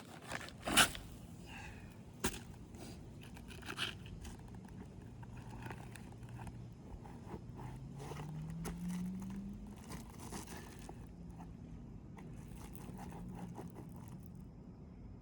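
Scraping and sharp knocks of asphalt roof shingles being worked and pried at to pull one loose, the loudest knock about a second in. The shingle will not come free because it is still nailed down under the row above.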